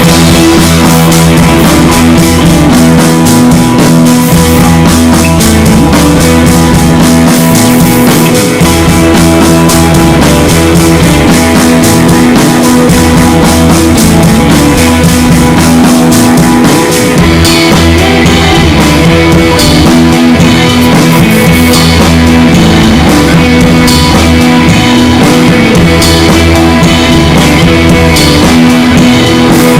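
Rock music with drums and electric guitar.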